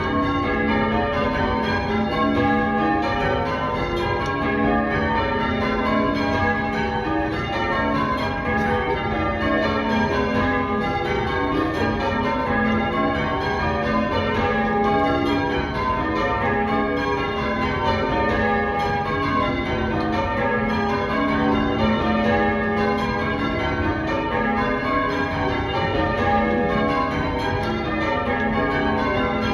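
A ring of bells change ringing: bells struck one after another in a steady, continuous rhythm, their tones overlapping.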